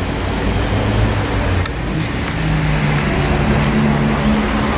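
Southern Class 377 Electrostar electric multiple unit approaching along the platform, running with a steady noise and a low electric hum that steps up in pitch a couple of times. A few sharp clicks stand out.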